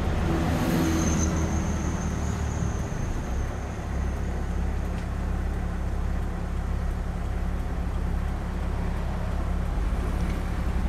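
A motor vehicle's engine running steadily with an even low hum, without revving.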